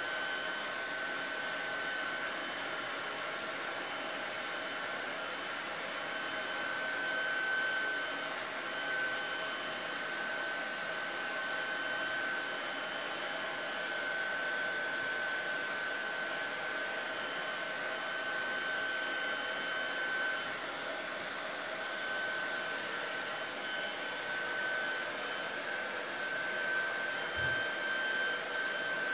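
Hand-held blow dryer running steadily: an even airflow hiss with a steady high whine, drying still-wet craft ink.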